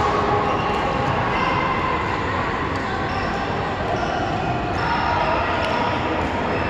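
Steady background noise of a large indoor sports hall, with a few light taps from two badminton players moving about the court.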